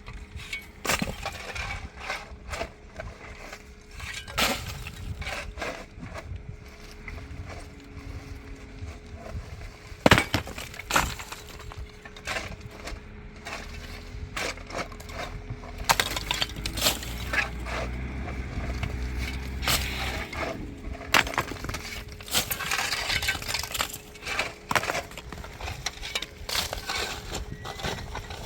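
Repeated sharp knocks, clinks and cracks of broken building materials being smashed and shifted, loudest about a third of the way in. An engine drones more loudly for several seconds past the middle.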